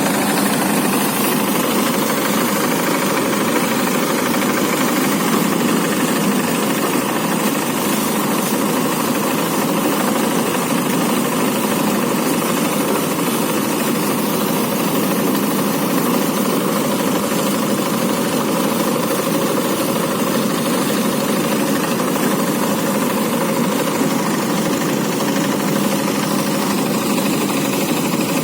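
Rice threshing machine running steadily at a constant speed, its engine and drum giving an even mechanical noise.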